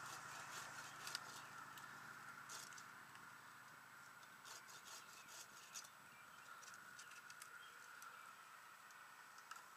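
Faint, scattered clicks and rustles of branches and twigs being handled by a climber in a tree, over a faint steady hum.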